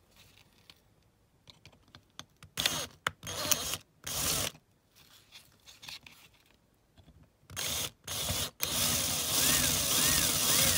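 Power drill run in a few short bursts, then drilling continuously into a rivet in a die-cast toy car's baseplate for the last couple of seconds, its motor speed rising and falling.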